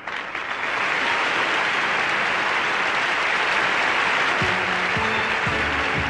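Audience applauding loudly. About four and a half seconds in, a band starts playing under the applause.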